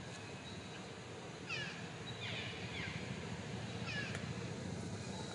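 Baby macaque crying with short high-pitched calls, each falling in pitch, about four of them starting a second and a half in.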